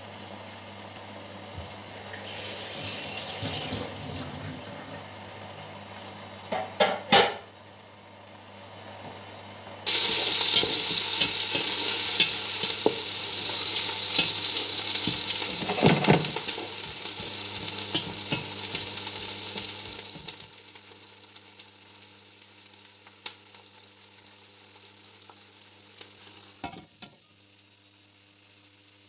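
Chopped onion sizzling in hot oil in a pot, starting suddenly about ten seconds in as the lid comes off, with a wooden spatula stirring and knocking against the pot. The sizzle dies down in the second half, and there is a clink near the end as the glass lid goes back on. A low steady hum runs underneath.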